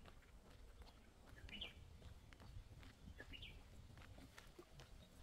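Near-quiet country air with a small bird calling twice, short high chirps about two seconds apart, over a faint low rumble and a few light clicks.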